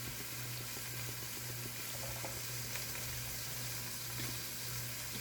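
Steady hiss of bottled water being poured into a blender jar, over a low steady hum.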